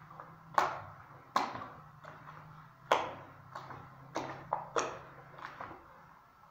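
A bare hand plunging into and lifting thick wet acrylic screeding putty in a plastic bucket: a string of sharp wet slaps and squelches, about eight, irregularly spaced.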